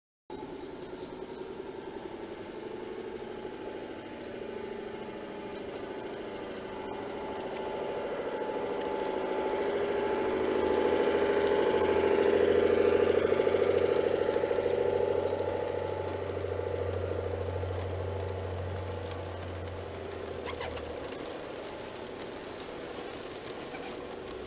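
Garden-scale model train rolling past on outdoor track: the diesel locomotive's electric motor and gearing whir and the wheels rattle on the rails. It grows louder as the locomotive nears, is loudest about halfway through, then eases as the freight cars go by. Birds chirp faintly throughout.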